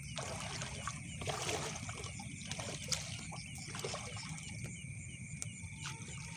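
Shallow water sloshing and splashing in short, scattered bursts, with a sharper splash or knock about three seconds in. Under it runs a steady high chirping chorus of insects.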